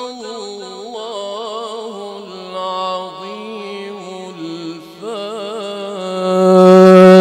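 A reciter chanting the Quran in melodic tajweed style, drawing out long ornamented notes with wavering pitch. The voice swells louder about six seconds in.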